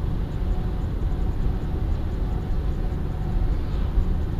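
Steady low rumble of a car driving, engine and road noise heard from inside the cabin, with no sudden impact.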